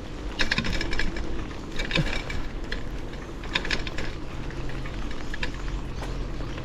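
Bicycle freewheel ratchet clicking in short runs of rapid ticks as the rider coasts between pedal strokes, over steady road and wind rumble.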